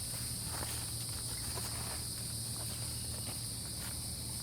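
Steady, high-pitched chorus of insects, over a low steady hum and a few faint clicks.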